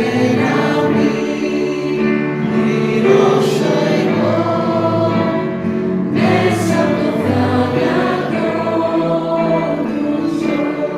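A choir singing a hymn in long held notes, with a new phrase starting about every three seconds.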